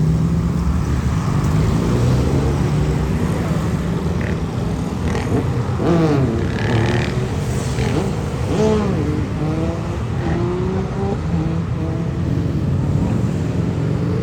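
Motorcycle engines running steadily, with a few short rises and falls in pitch between about five and nine seconds in.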